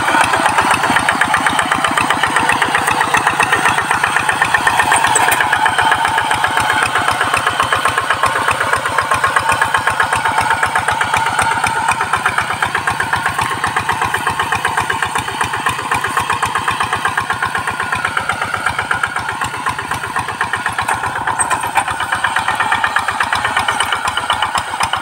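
Quick two-wheel hand tractor's single-cylinder diesel engine running steadily while it pulls a harrow through a ploughed rice paddy. Its firing pulses come in a fast, even beat.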